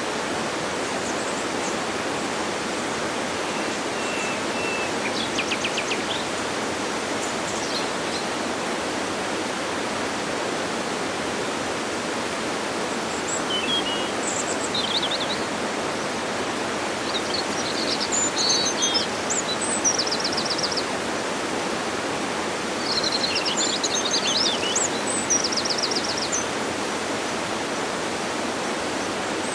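Waterfall pouring, a steady even rush of falling water, with birds chirping and trilling over it now and then, most often in the second half.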